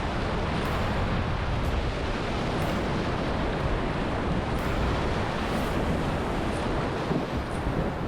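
Rushing whitewater of a rocky creek rapid: a steady, even rush of water with no break.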